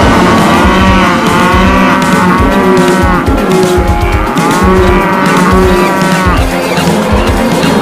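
Cattle mooing over and over, several long rise-and-fall calls overlapping, over a run of heavy low hoof thuds from a stampede.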